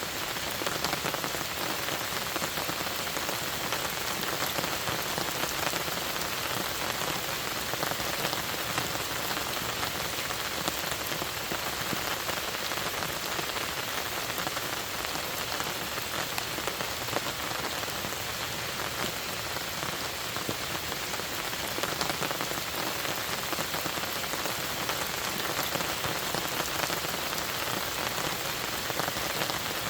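Steady rain falling: an even hiss made of a dense patter of drops, unchanging throughout.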